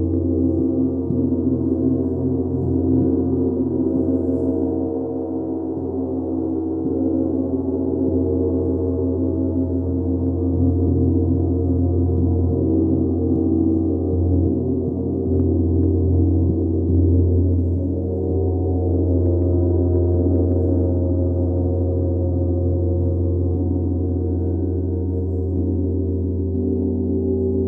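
A large hanging gong played continuously with soft felt mallets in a sound bath, repeated gentle strokes keeping up a loud, sustained wash of many overlapping tones over a deep hum.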